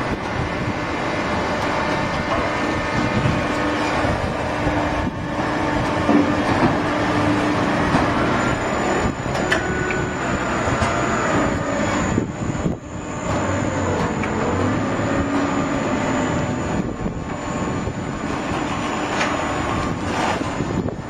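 Hydraulic cardboard baler running: a steady, loud machine din with a few held tones, joined about eight seconds in by a thin high whine that holds on.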